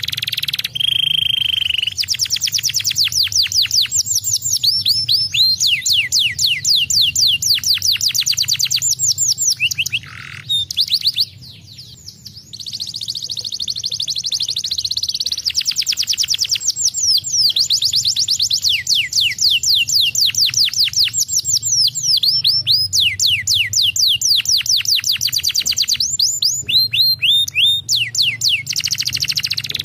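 Canary singing long rolling trills made of rapid falling whistles, with a short break about a third of the way in.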